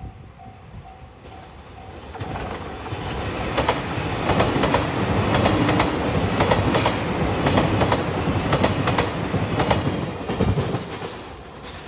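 Limited express train passing close by at speed, its wheels clacking rhythmically over the rail joints. The sound swells in, is loudest for several seconds, then fades as the train moves away. A level-crossing bell dings steadily at the start until the train drowns it out.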